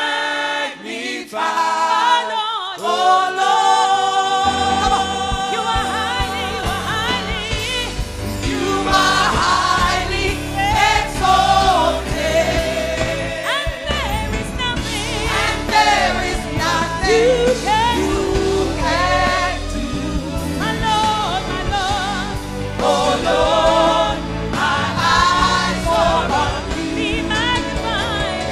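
Congregation and worship leaders singing a gospel worship song. The singing starts unaccompanied, and the band comes in with a full low end about four seconds in.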